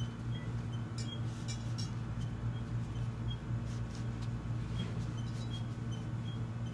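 Soft rustling and faint crackle of thin spring roll wrapper sheets being peeled apart and rolled by hand, over a steady low hum.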